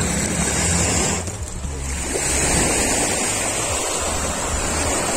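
Small waves washing onto a sandy beach: a steady wash of surf, briefly softer about a second in.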